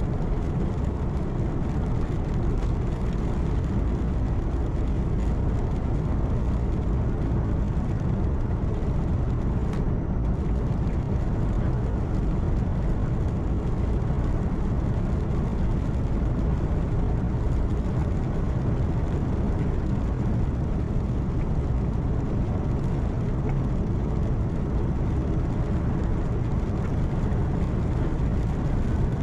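A truck's engine and tyres heard from inside the cab while driving at a steady speed: an even, low drone of engine and road noise with no changes.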